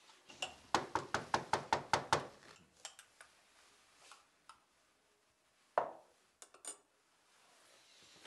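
A metal spoon stirring a hot drink in a ceramic mug: a quick run of about a dozen clinks against the mug's sides over a second and a half. A few seconds later comes a single louder knock of something set down on the counter.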